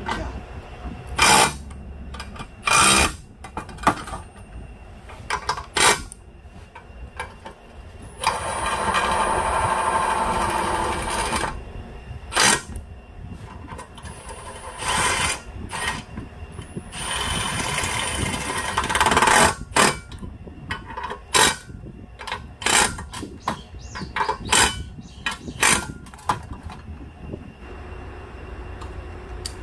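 Milwaukee M18 cordless impact driver running in two bursts of about three seconds each, driving bolts into a steel mount. Around the bursts are sharp clanks and clinks of steel tools and parts being handled, quickest near the end.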